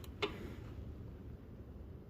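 A single sharp click of a hand tool on the motorcycle's footpeg bolts about a quarter second in, with a brief ring, over a faint low hum.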